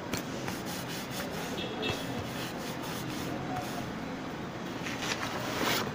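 Hands rubbing and pressing paper on a glued pasteboard cover and wiping it with a crumpled tissue, with a few light taps early on and a louder brushing rub near the end, over steady street noise.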